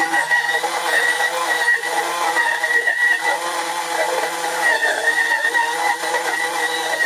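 Wancle electric flat-burr coffee grinder running steadily on its automatic timed cycle: a motor whine with a high steady tone, grinding coffee beans.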